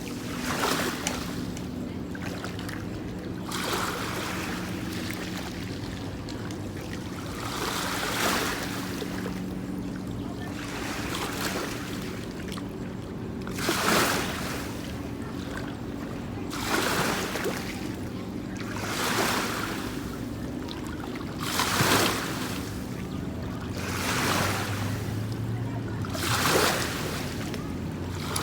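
Small lake waves washing onto the shore, each a brief rush of water, coming about every two to three seconds over a steady low hum.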